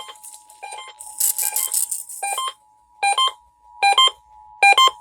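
Emergency Alert System two-tone attention signal, a steady pair of tones near 853 and 960 Hz, with a louder electronic beeping over it in short clusters, about one cluster a second in the second half.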